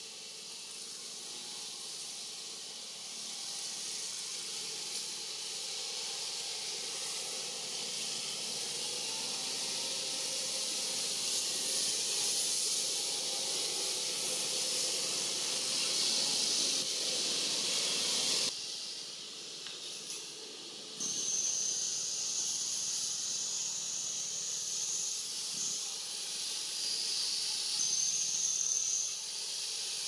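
A steady high-pitched hiss that grows over the first half, cuts off suddenly about 18 seconds in, and returns a couple of seconds later with a thin, steady high tone over it for several seconds.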